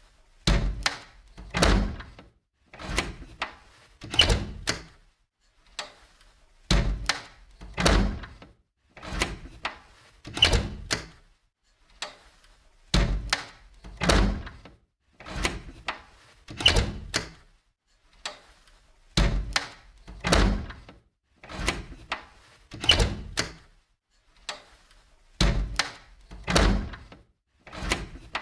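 An old window being opened and closed again and again. Each movement is a short cluster of knocks and thuds, and the open-and-close pairs repeat every few seconds.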